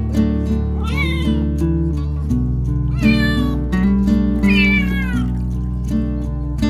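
Young orange kitten meowing three times, about a second apart; the last call is the longest and falls in pitch. Background music plays throughout.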